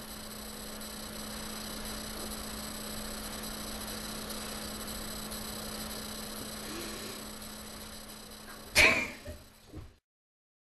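A steady electrical-sounding hum over background hiss. Near the end a single brief, loud, pitched cry cuts through, then the sound drops out completely.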